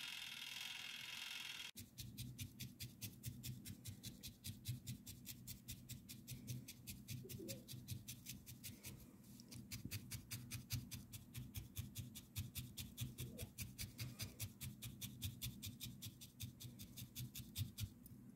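A barbed felting needle stabbing into wool in a rapid, even rhythm, several jabs a second, faint. It starts about two seconds in, when a steady hum cuts off.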